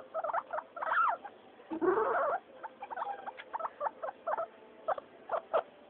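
Guinea pigs calling: a quick run of short pitched calls, with a louder call rising in pitch about two seconds in.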